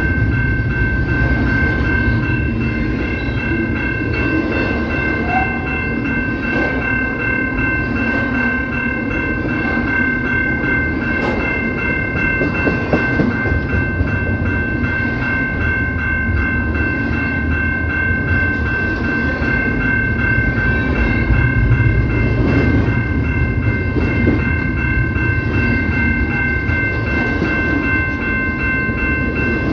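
CPKC freight train passing, its wheels rumbling on the rails, under a steady high chord of several notes held unbroken throughout.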